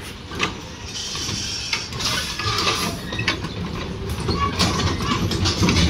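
Rotating amusement-park ride with bug-shaped cars running: a steady mechanical rumble with scattered clatters from the turning cars, growing louder.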